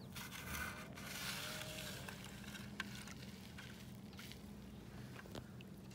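A small plastic toy canoe being pushed over wet sand into shallow lake water, making faint scraping and water sounds. Two light clicks come later, and a low steady hum runs underneath.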